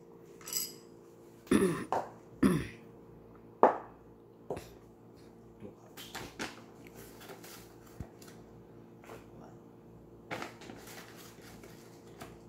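A paper bag of almond flour being handled and a plastic measuring cup scooping flour from it, heard as rustling and small knocks. Several loud, short sounds come in the first four seconds, and lighter clicks and rustles follow.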